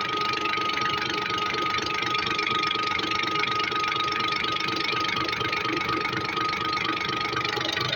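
Cummins six-cylinder diesel injection pump running: a rapid, steady mechanical clatter with a steady high whine above it.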